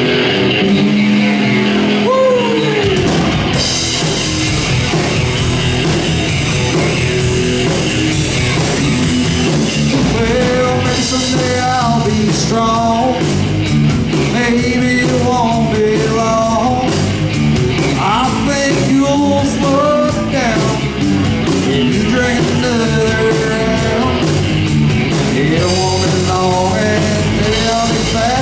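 Live rock band playing loudly: electric guitar, bass guitar and drums.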